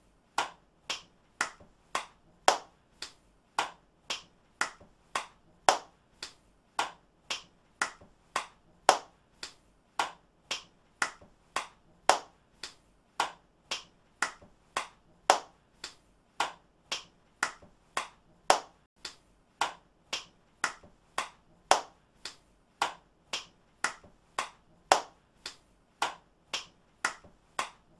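Hand clapping: single sharp claps repeated at a steady pace of about two a second, some claps louder than others.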